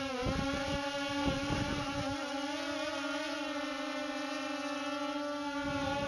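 Electric motors and propellers of a Parrot Swing minidrone whining steadily, close to the onboard camera, the pitch wavering slightly with throttle. Low rumbling thuds come through in the first two seconds and again near the end.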